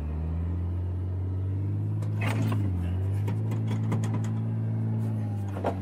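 Recovery vehicle's engine pulling hard under load, towing a stuck Range Rover out of deep sand on a recovery rope; the engine note holds steady, sags briefly near the middle, with scattered knocks and clicks through the middle of the pull.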